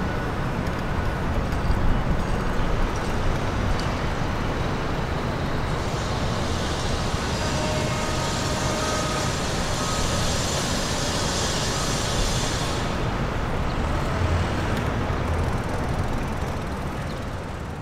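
Steady rumble of motor-vehicle traffic, with a high hiss joining in for about seven seconds in the middle. It fades out at the very end.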